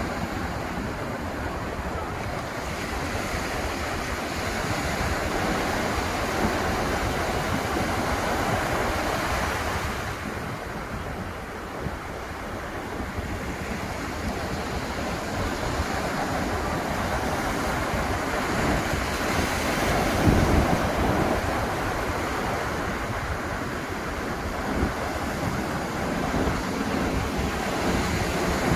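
Ocean surf breaking on the beach: a continuous wash of waves that swells and eases, with wind buffeting the microphone.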